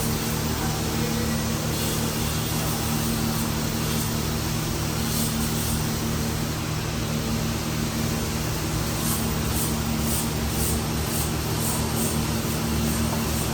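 Steady engine drone at a constant pitch and level, with a low hum over a broad rushing noise, as heard from inside a running vehicle.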